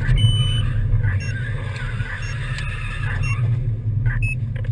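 Steady low road and engine rumble inside a moving car, with short high electronic beeps about once a second. Near the end there is a knock as the car runs off the road onto the verge.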